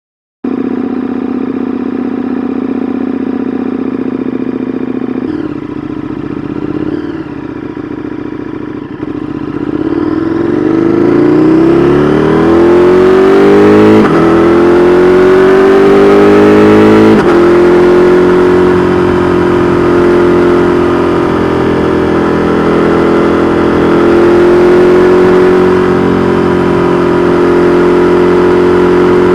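2022 KTM 1290 Super Duke R Evo's V-twin engine through an Austin Racing V3 Mini exhaust, running low and steady at first, then accelerating with a rising pitch from about ten seconds in. It breaks briefly twice, then settles into a steady cruise at higher revs.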